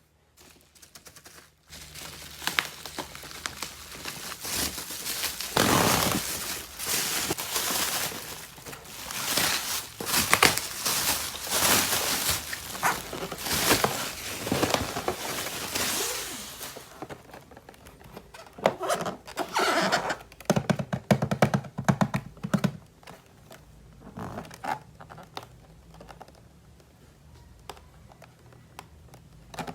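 Plastic toy parts and packaging being handled in an unboxing: dense rustling, crinkling and clicking, then sparser clicks and taps in the second half.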